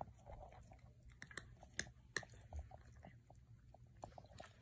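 A cat eating wet food from a stainless steel bowl: soft, irregular chewing and smacking clicks, faint.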